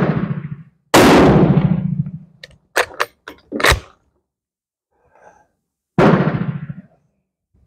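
Rifle shots: three sharp reports, each ringing on for about a second off the concrete, the loudest about a second in. Between the shots come a few quick metallic clacks as the Steyr M95's straight-pull bolt is worked.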